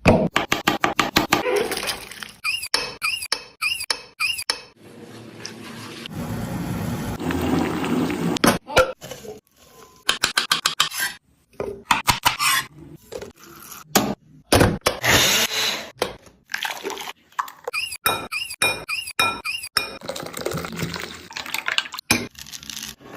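Kitchen utensils and dishes clinking and knocking in quick runs of short strikes, with a few squeaks. About a quarter of the way in there is a longer noisy stretch that swells and then stops.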